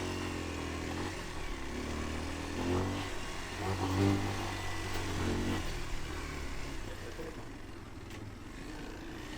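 Kawasaki KLX 230's single-cylinder four-stroke engine running at low revs on rough ground, its pitch climbing with the throttle twice, a few seconds in.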